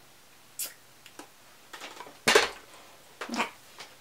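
Handling noises: a few light clicks and rustles, then one louder thump a little over two seconds in, as a lighted tabletop makeup mirror is moved and set aside.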